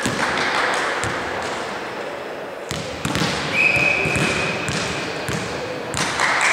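Volleyball being played in a sports hall: players' voices and calls, a ball thudding on the floor at the start, and a short, steady, high-pitched whistle blast a little past the middle, such as a referee's whistle for the serve.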